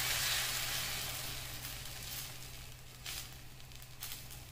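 Egg omelette batter sizzling in hot oil on a tawa as it is poured into a hollowed bread slice. The sizzle fades steadily over a few seconds, with a couple of light clicks near the end.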